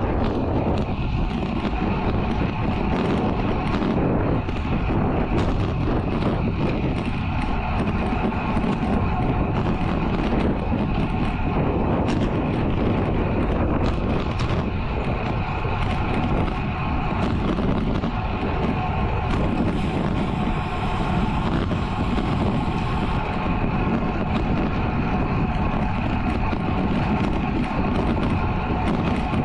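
Steady rush of wind on the microphone and tyre noise from a Focus Izalco Max road bike ridden at about 40 km/h on smooth asphalt.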